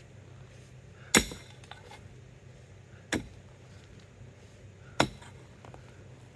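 Three sharp knocks, about two seconds apart, each with a short ring after it; the first is the loudest.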